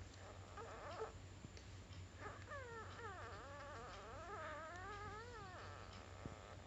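A sleeping pet whimpering: a short whine about a second in, then a longer moaning whine of about three seconds whose pitch dips and wavers up and down.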